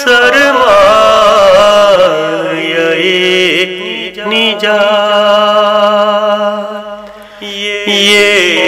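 Devotional chanting: a melodic voice holding long, ornamented notes over a steady drone, with a brief dip in loudness near the end.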